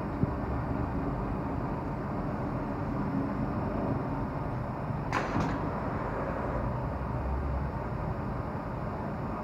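Spiral perforated-metal filter mesh tube forming machine running with a steady mechanical rumble. There is a sharp click just after the start and two sharp metallic strikes about five seconds in.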